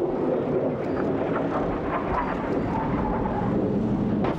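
Steady rumble of distant city traffic, with faint short higher sounds over it.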